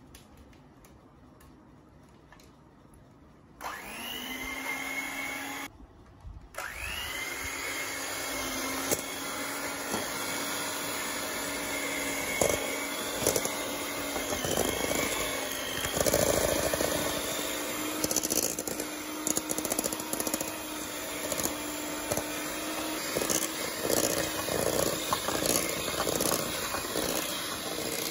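Borosil electric hand mixer switching on about three and a half seconds in and whining up to speed, cutting out briefly, then running steadily. Its beaters whip softened butter in a steel bowl, knocking against the bowl now and then.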